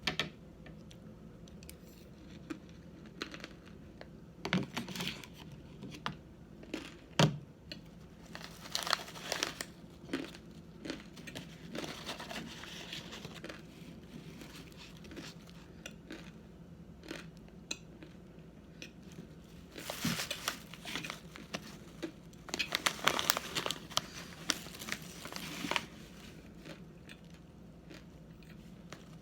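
Crinkling and rustling in several bursts, with scattered light clicks and taps, as arrowroot starch and its packaging are handled for eating. The longest spell of crinkling comes late, about 22 to 26 seconds in.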